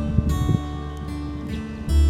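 Background music: a gentle acoustic-guitar track with plucked and strummed notes over a steady bass.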